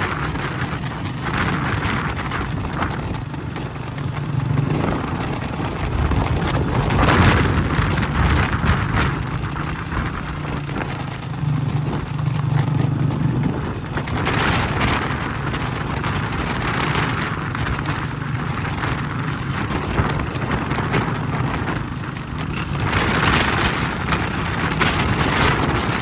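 Motor vehicle engine running steadily, with a rushing noise that swells and fades a few times.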